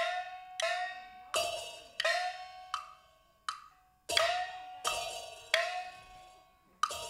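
Live percussion from a traditional Taiwanese glove-puppet (budaixi) backstage ensemble: about ten sharp strikes at one pitch in an uneven rhythm, each ringing out and fading, with a short lull about halfway through.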